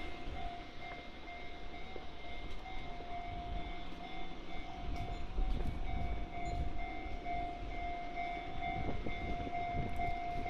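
Japanese level-crossing warning bell ringing steadily in a fast repeating electronic chime while a Kintetsu electric multiple-unit train rumbles over the crossing.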